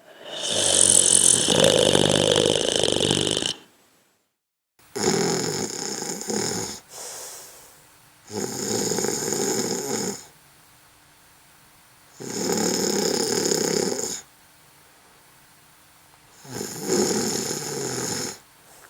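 A person snoring: five long, rasping snores about every four seconds. The first is the longest and loudest, with a strong hissing edge.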